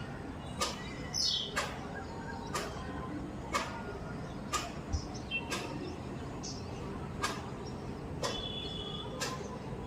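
A bird repeating a short, sharp call about once a second, with a few thinner, higher notes and a brief falling whistle among them, over a steady background hiss.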